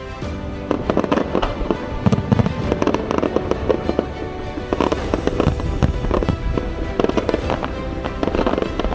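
Aerial fireworks going off in rapid, irregular bangs from about a second in, over music playing with the show.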